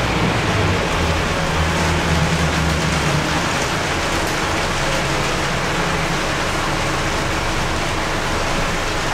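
Heavy rain falling on a city bus's windows and roof, heard from inside the cabin as a steady hiss. Under it runs the low hum of the bus's Scania DC9 diesel engine, heavier in the first three or four seconds and then easing.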